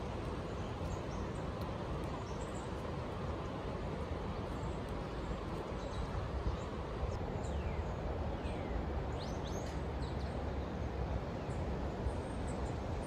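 Steady outdoor rushing noise, with wind rumbling on the microphone, and a few short, quick, descending bird chirps about halfway through.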